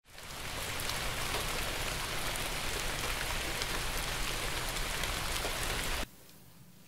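Steady rain falling, fading in at the start and cutting off abruptly about six seconds in, leaving quiet room tone.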